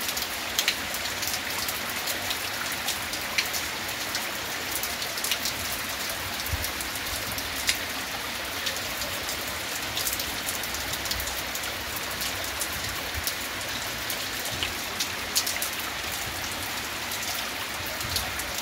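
Rain falling steadily, with scattered sharp ticks of drops striking close by.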